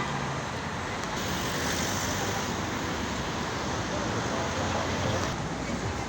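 Steady city street traffic: a continuous rush of cars going past.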